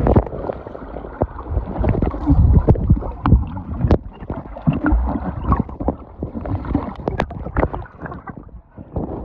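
Person jumping into a swimming pool: a splash right at the start, then churning water with many sharp knocks and bubbling as the phone's microphone dips under the water beside the swimmer, and more splashing at the surface near the end.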